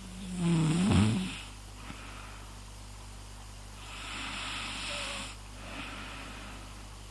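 A person performing a fake snore: a loud, roughly one-second snoring breath with a wavering pitch right at the start, then a long breathy exhale about four seconds in and a fainter breath just after it.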